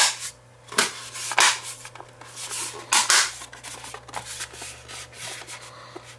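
Plastic housing of a Wi-Fi booster being handled and pressed together: sharp plastic clicks and scrapes about a second in and again about three seconds in as the front cover is pushed on, then softer rubbing and handling noise.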